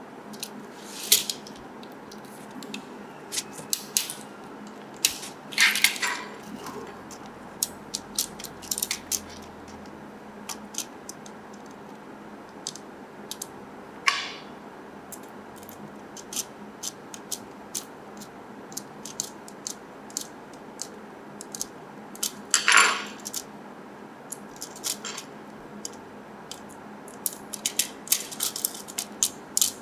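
Light clicks and taps of small plastic parts and tiny metal screws being handled and screwed into a Tamiya Mini 4WD plastic chassis with a small screwdriver on a wooden tabletop. A few louder clacks stand out among the scattered ticks.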